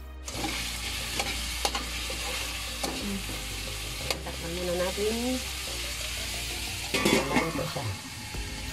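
Chicken pieces sizzling in a hot metal wok as they are stirred with a fork, the tines scraping and clicking on the pan. About seven seconds in comes a louder clatter as a metal lid is set on the wok.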